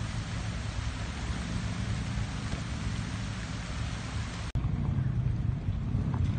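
Water running over rock ledges, a steady hiss, with engines running low underneath. About four and a half seconds in, it cuts abruptly to a louder, lower vehicle engine running as it drives into a muddy pond.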